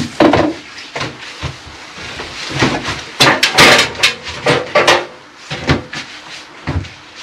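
Irregular knocks and clatter of wooden planks being handled and set down, with a busy run of knocks in the middle.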